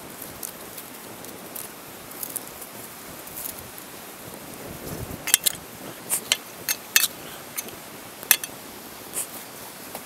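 Small wood fire crackling, with a run of sharp pops and snaps from about five seconds in over a steady low hiss.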